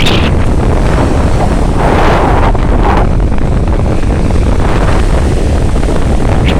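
Strong wind buffeting the microphone with a loud, steady rumble, over sea waves washing on the shore; a wave rushes in about two seconds in.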